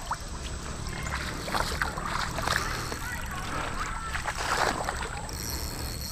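Creek water sloshing and lapping while a hooked fish is held on a rod, with scattered light clicks and knocks of tackle handling over a low steady rumble.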